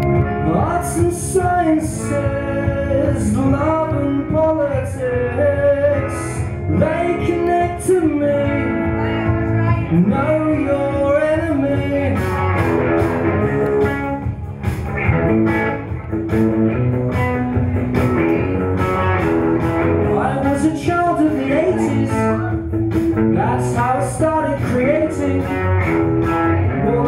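Live blues-rock music on electric guitar, with a melody line that slides and bends in pitch through the first half, then a fuller, more even passage.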